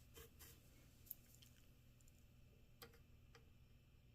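Near silence with a few faint, short clicks and taps, the sharpest a little after one second in.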